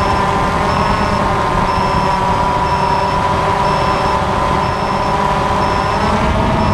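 DJI Phantom FC40 quadcopter's motors and propellers whining steadily in flight, heard from the drone itself. The pitch shifts up slightly near the end, and a faint short high beep repeats about once a second.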